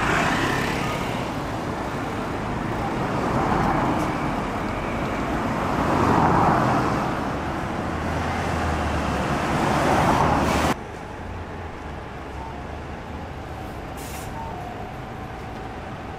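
Road traffic: a city bus and cars driving past, the sound swelling and fading as each goes by. About eleven seconds in it cuts off suddenly to a quieter, steady traffic hum with a few faint short tones.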